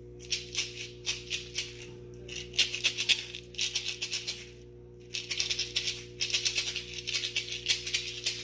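A maraca shaken in quick runs of rattling strokes, stopping briefly twice, over a steady low hum.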